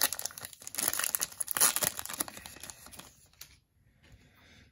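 Foil wrapper of a Topps baseball card pack being torn open and crinkled by hand, a dense crackling that dies away about three seconds in.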